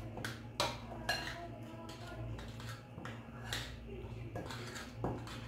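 Yogurt and ground spices being mixed in a bowl: a few sharp clinks and knocks against the bowl, over a steady low hum.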